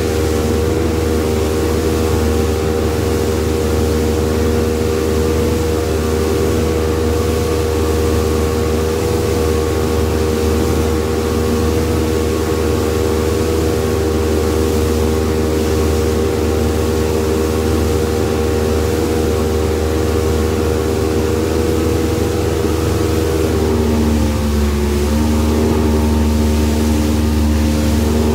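Small boat's outboard motor running flat out at wide open throttle, a loud steady drone. About 24 seconds in the engine note drops to a lower pitch.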